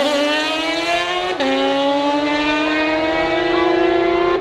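Two sport motorcycles racing away at full throttle, the engine note climbing steadily. A quick upshift about a second and a half in drops the pitch sharply, then it climbs again until another shift at the end.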